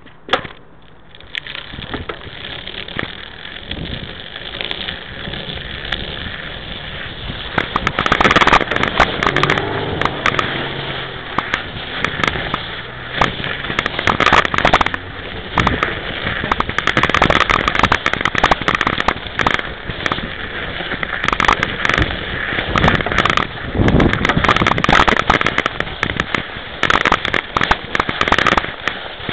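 Knobby tyre of a 26-inch mountain bike rolling through snow: a dense, irregular crackle and crunch that grows louder over the first several seconds as the bike moves from pavement onto snow, then carries on steadily, with rattle from the bike-mounted camera.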